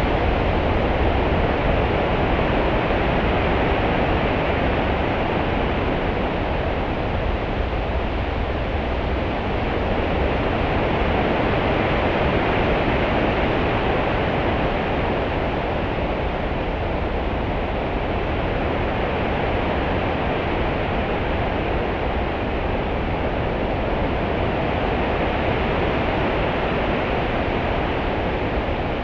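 Continuous ocean ambience: a steady rushing wash of waves with a deep low rumble underneath, swelling and easing slowly over several seconds at a time.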